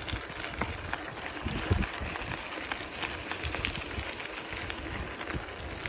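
Wind buffeting the microphone in uneven low gusts as a bicycle rolls along a dirt forest path, over a steady hiss of tyre and air noise with scattered small clicks and rattles.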